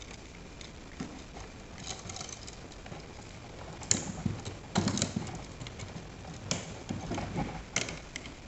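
Small clicks and scrapes of a hand screwdriver turning the terminal screws on a wall receptacle, with the receptacle being handled; a few sharper clicks come about four and five seconds in and again near the end.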